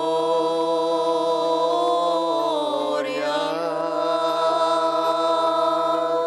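Slow, chant-like church singing in long held notes, with a change of note about halfway through.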